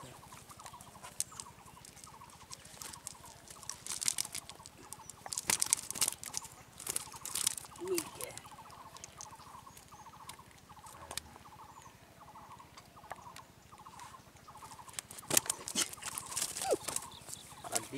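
Wet cast net and fish being handled as the fish are picked out of the mesh by hand: irregular bursts of rustling, crackling and pats.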